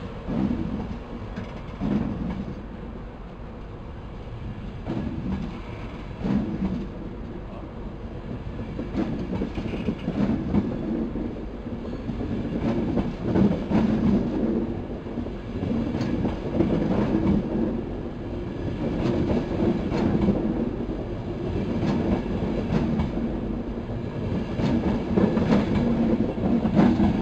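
East Coast Mark 4 passenger coaches rolling past along the platform, wheels clacking over rail joints in a repeated rhythm over a steady rumble, growing louder through the run.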